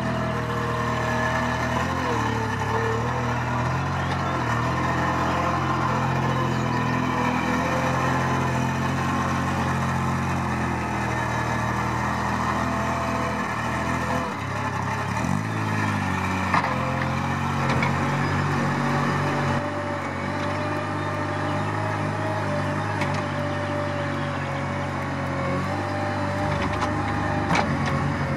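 Engine of a small articulated loader running under work, its pitch rising and falling now and then as it pushes and lifts.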